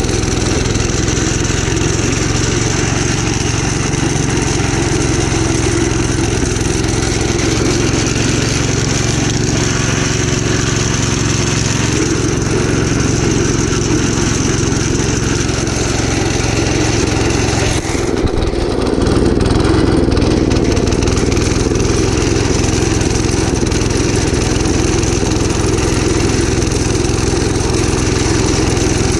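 Gravely Commercial 12 walk-behind tractor engine, with a 34-inch snow cannon mounted, running steadily after a cold start. About two-thirds of the way through it briefly falters, then runs on a little louder.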